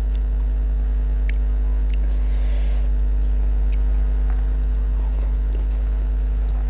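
Steady low electrical mains hum, with a few faint clicks and a brief soft rustle about two and a half seconds in.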